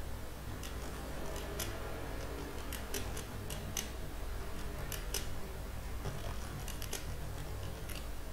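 Scattered light clicks and ticks at an irregular pace, over a faint steady low hum.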